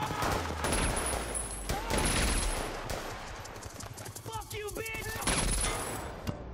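Rapid automatic gunfire, a dense exchange of rifle and submachine-gun bursts.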